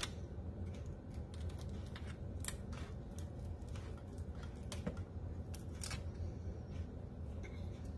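A fork and a flat serving utensil clicking and scraping against a foil-lined metal loaf pan and a plate while a piece of meatloaf is cut and lifted out, a handful of separate light clicks over a steady low hum.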